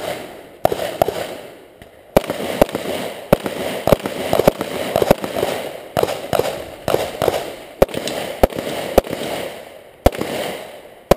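.38 Super pistol fired in a long string of single shots, about two a second, with a pause of about a second near the end before the last shot.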